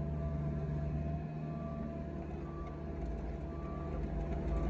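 A vehicle engine running steadily at an even pitch, a low, unbroken drone with a faint higher tone coming and going over it.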